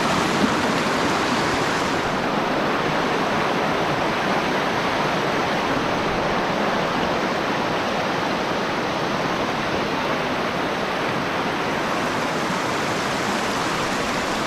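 Steady rush of flowing water, an even hiss with no pauses or separate splashes.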